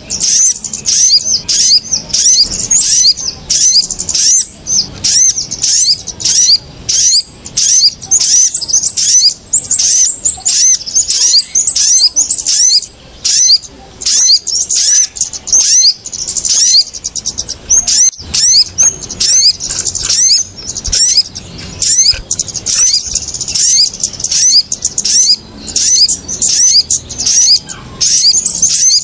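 Agitated, rapid high-pitched chirping of small birds, sunbirds (sogok ontong) and kemade mixed together, several notes a second with barely a break. It is a bird-trapping lure call ('ribut', excited alarm chatter) meant to bring small birds down to lime sticks.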